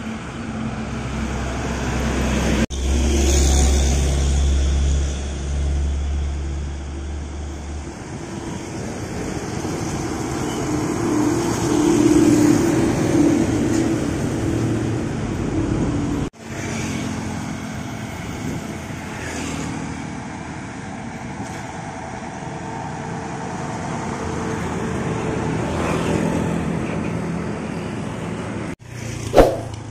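Road traffic: diesel trucks and other vehicles passing close by, with a deep engine rumble for the first eight seconds. The sound breaks off abruptly a few times.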